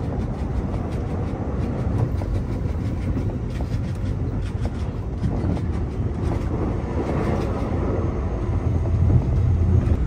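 Keio Line commuter train running, heard from inside the carriage: a steady low rumble of wheels on the rails with a few faint clicks, growing slightly louder near the end.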